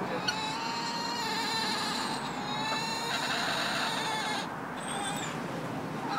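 A cockerel crowing: one long drawn-out call of nearly three seconds. Fainter calls and two brief high chirps follow.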